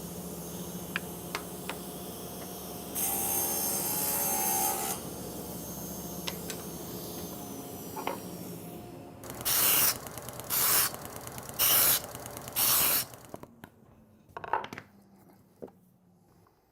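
Workshop tool sounds during cutting and assembly of wood pieces: a machine running steadily with a low hum, then four short loud hissing bursts about a second apart, followed by a few scattered knocks as the hum stops.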